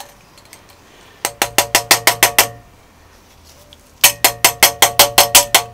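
Two quick runs of light hammer taps on metal, about ten blows each at roughly eight a second, each blow ringing briefly. A part of the A-Series engine is being tapped down over slightly bent studs.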